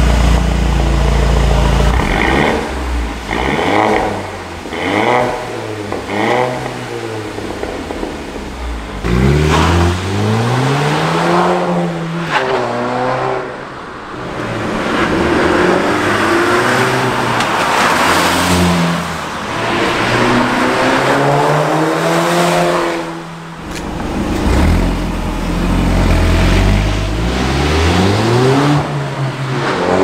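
Mercedes-Benz CLA 200's turbocharged four-cylinder engine running through an Armytrix turbo-back exhaust. First come a few quick rev blips with the exhaust valves open in loud race mode. Then, about a third of the way in, the car accelerates hard past the microphone several times, the engine note rising in pitch with each pull and dropping off.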